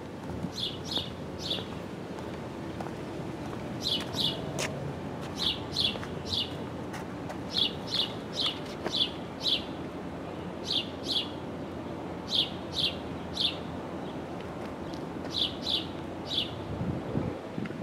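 A bird chirping repeatedly, in quick runs of two to four short, high chirps every second or two, over a steady low outdoor background noise.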